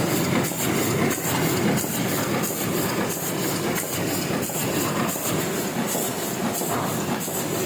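Heidelberg sheet-fed offset printing press running at speed: a steady, rhythmic mechanical clatter that repeats a few times a second.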